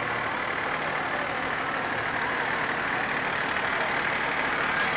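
Large road vehicle running steadily as it moves past, a continuous noise with no sharp events.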